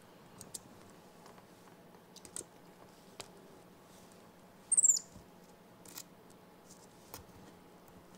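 Baby cinnamon capuchin monkey giving one short, very high squeak that falls slightly in pitch, about five seconds in. Faint scattered taps come and go around it.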